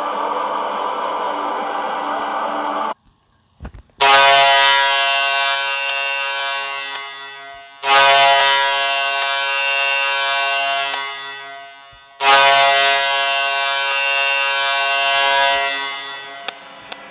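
The Colorado Eagles' arena goal horn sounds three long blasts, each starting loud and fading out over a few seconds. Before it, the tail of a goal song with guitar cuts off suddenly, followed by a brief pause and a small thump.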